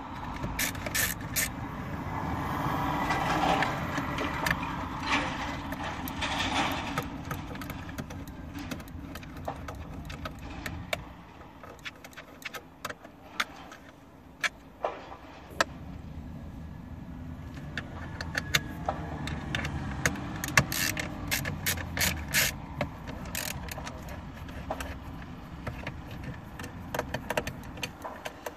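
Sharp metallic clicks and taps of a nut driver and socket working the mounting bolts behind a car's touchscreen display, coming in clusters, with a dense run of clicks in the second half. A steady low rumble runs underneath.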